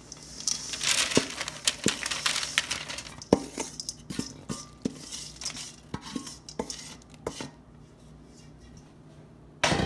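Oat granola with nuts and seeds poured from a stainless steel mixing bowl onto a parchment-lined baking sheet: a dense rustling pour in the first few seconds, with many clicks and scrapes against the metal bowl as the last of it is worked out. One loud sharp knock comes near the end.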